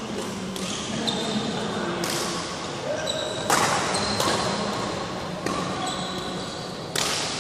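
Badminton rackets striking a shuttlecock in a rally, several sharp hits about a second or so apart, echoing in a large hall, with short squeaks of shoes on the court floor between them.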